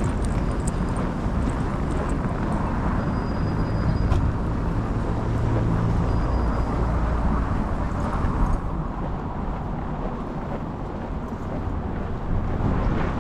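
Street noise in a snowstorm: wind rumbling on the microphone mixed with passing traffic, with a vehicle's engine hum swelling in the middle.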